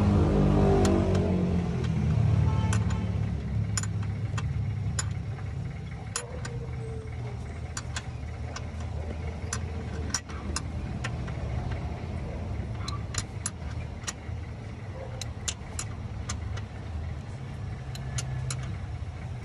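A car engine running steadily, louder for the first couple of seconds, with scattered light clicks and clinks throughout.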